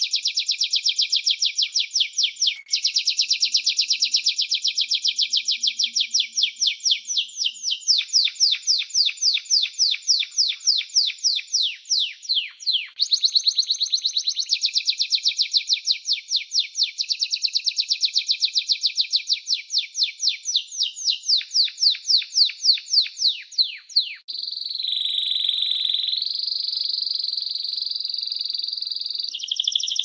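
Domestic canary singing: runs of fast repeated notes, switching to a new note type every few seconds. Near the end comes one long held note that steps up in pitch partway through.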